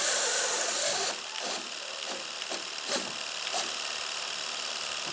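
A motor running with a steady high hiss. It is louder for about the first second, then drops lower, with a few short clicks.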